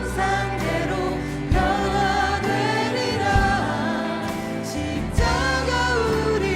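Live worship band with singers performing a praise song: voices holding sustained melody lines over steady band accompaniment, with a couple of sharp hits.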